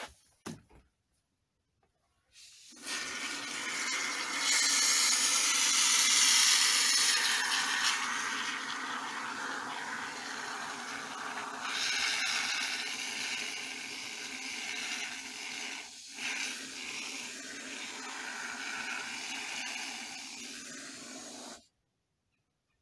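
Can of expanding spray foam hissing as the foam is dispensed through its straw, starting a couple of seconds in after a few light clicks. The hiss runs on with a brief break about sixteen seconds in and cuts off suddenly near the end.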